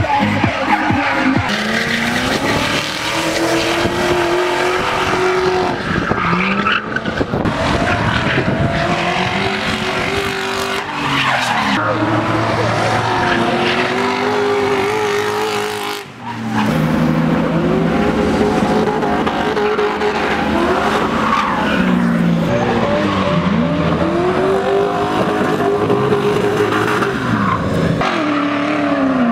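V8-engined BMW E30 drift car revving hard, its pitch rising and falling again and again as the throttle is worked through the drifts, with tyres squealing and skidding. About halfway through the sound briefly drops away, then comes back just as loud.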